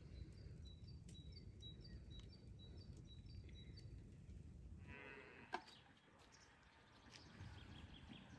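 Faint outdoor ambience with a low rumble: a small bird chirps repeatedly in short high notes, then about five seconds in a distant cow moos briefly, followed by a single sharp click.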